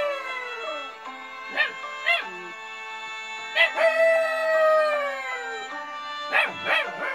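Puppy howling along with music: a falling howl at the start, two short yips about a second and a half in, a long howl sliding down in pitch from about three and a half seconds, then two more short yips near the end. Music with sustained tones plays underneath.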